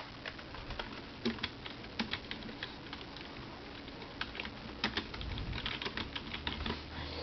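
Faint typing on a computer keyboard: irregular runs of key clicks.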